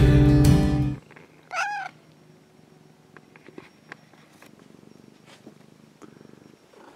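Intro music stops about a second in, then a domestic cat gives one short meow that rises and falls in pitch, followed by faint purring.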